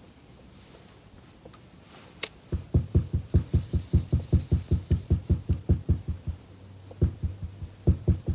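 Fishing reel being cranked by hand: a fast, even knocking about eight times a second that starts about two and a half seconds in, breaks off briefly around six seconds, then picks up again.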